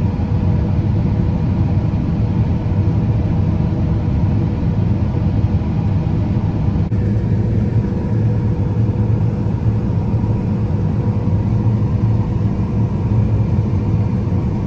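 Combine harvester running steadily while cutting wheat: a constant low rumble with a faint steady hum on top.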